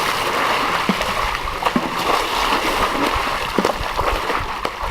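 A steady rush of splashing water, with a few faint knocks.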